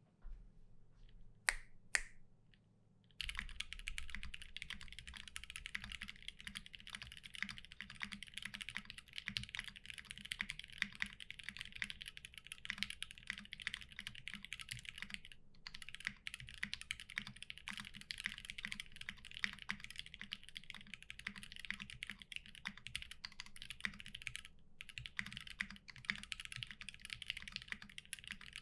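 Steady fast typing on a Keycult No. 2 mechanical keyboard with lubed Gateron Black linear switches, GMK keycaps and a leaf-spring-mounted brass plate. Two sharp clicks come first, the typing starts about three seconds in, and it breaks off twice for a moment.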